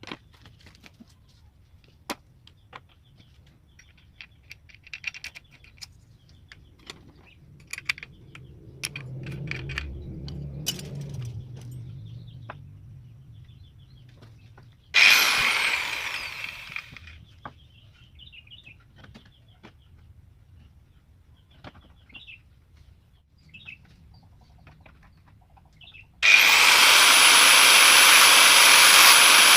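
Handling clicks and knocks, then an angle grinder switched on briefly about halfway and spinning down over a couple of seconds. Near the end the grinder starts again and runs steadily and loud with a high whine, as it is used to re-cut a handsaw's teeth.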